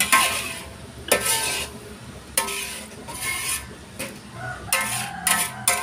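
A metal spatula scraping and stirring chicken and vegetables through coconut-milk broth in a large metal wok. It makes a scraping stroke about once a second, some strokes leaving a brief metallic ring from the pan.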